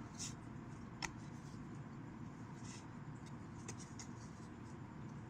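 Pokémon trading cards being handled: a few soft slides and rustles, with one sharp click about a second in, over a low steady hum.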